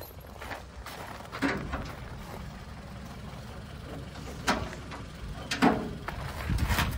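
Keys and lock of a metal fence gate being worked: a few scattered clicks and scrapes over a low steady rumble.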